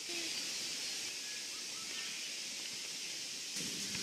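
Steady high hiss of outdoor ambience, with a few faint brief chirps.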